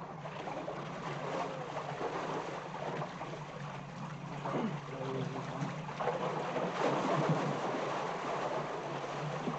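Water sloshing and splashing over a steady low hum, with faint voices now and then.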